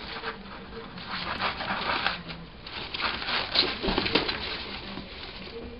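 Artificial houseplant's plastic leaves rustling and crinkling against newspaper as a Eurasian red squirrel drags the plant, in irregular bursts with a few sharper clicks, busiest about three to four seconds in.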